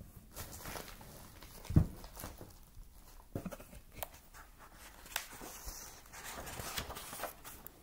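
Handling and turning the pages of a hardcover picture book: a few soft knocks and taps, with a thump about two seconds in, then a papery rustle as a page turns over near the end.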